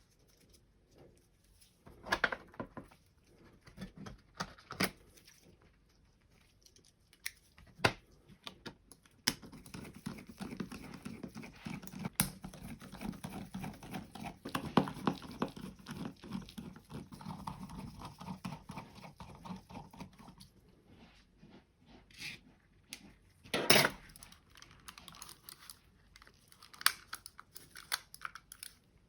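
A plastic computer mouse shell being pried and handled with small tools: scattered clicks and snaps, a long stretch of scraping and rustling in the middle, and one louder clack a few seconds before the end.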